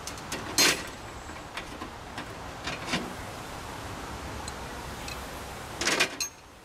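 Clicks and clinks of metal air-line fittings and a glad hand being handled and tightened on a semi truck. A sharp click comes about half a second in, a few softer ones near the middle, and a quick cluster of clacks near the end, over a steady low background hum.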